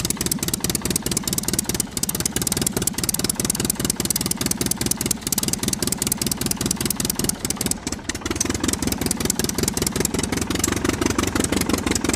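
Engine sound running steadily with a rapid, even chugging, from a toy radio-controlled backhoe loader.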